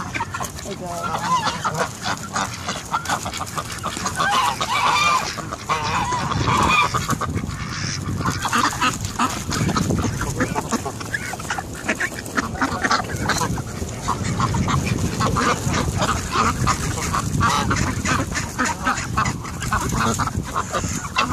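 A flock of domestic geese and ducks calling over one another, with geese honking again and again as they crowd in to be fed.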